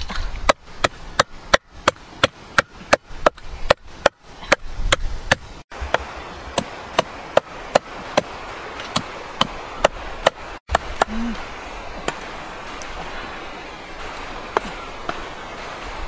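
Cleaver chopping snake meat on a thick round wooden chopping board. It starts as a fast run of sharp knocks, about two or three a second, and thins to slower single strokes, with only a few near the end.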